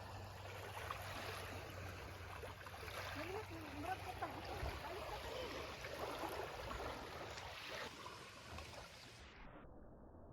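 A steady noisy hiss with faint voices in it, cutting off abruptly about nine seconds in.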